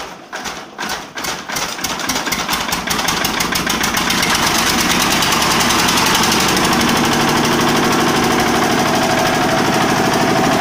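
Small diesel engine of a generator set just catching: uneven, separate firing beats that quicken and smooth out into a steady run after about four seconds, then holding a steady idle.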